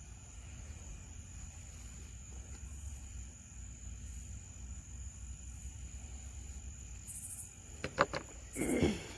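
Crickets chirring steadily in one high, even tone. About eight seconds in come a few sharp knocks, then a short, louder sound that falls in pitch.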